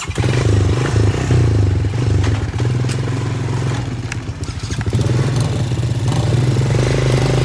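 ATV engine revving under throttle, its pitch rising and falling, with scattered clicks and knocks.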